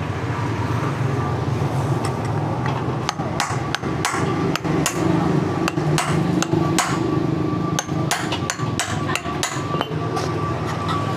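Hammer striking a part over and over in an irregular series of sharp knocks, beginning a couple of seconds in, with a steady low hum underneath.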